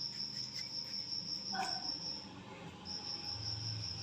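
An insect trilling, a steady high-pitched tone that breaks off for about half a second a little past the middle, over a faint low hum.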